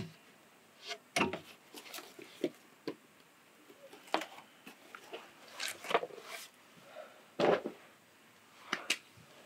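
Scattered light knocks, clicks and swishes at irregular intervals, the loudest a little past the middle, in a small room.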